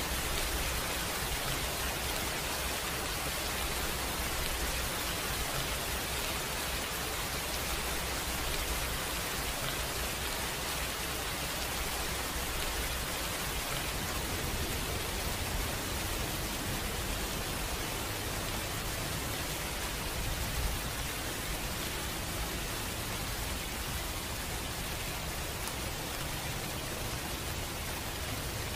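Steady heavy rain: an even, unbroken hiss of downpour with a low rumble underneath.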